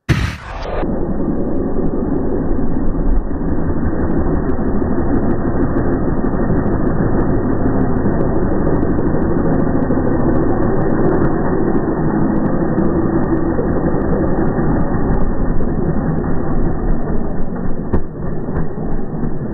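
Small single-cylinder dual-sport motorcycle engine running steadily as it rides slowly over grass. The sound is heavily muffled, with little of the engine's higher detail.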